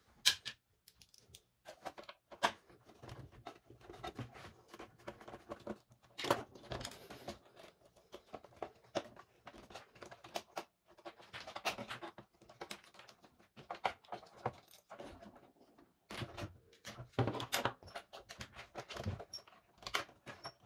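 Plastic internal parts and rubber hoses of a Siemens EQ.5 bean-to-cup coffee machine being handled and pulled free by hand: irregular clicks, knocks and rattles with rustling between them.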